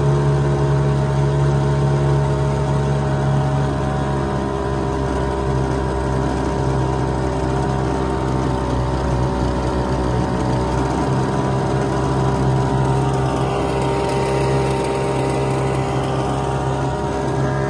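Hangkai 3.6 hp two-stroke outboard motor, freshly broken in, running steadily at cruising throttle and pushing a small aluminium jon boat. Its level drops slightly a few seconds in and then holds even.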